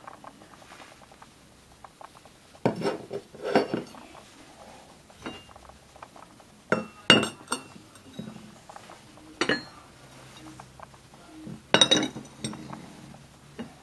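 White ceramic cups and saucers clinking against each other as they are set down and stacked. There are clusters of sharp clinks and knocks about three seconds in, around seven seconds (the loudest), near nine and a half seconds and near twelve seconds.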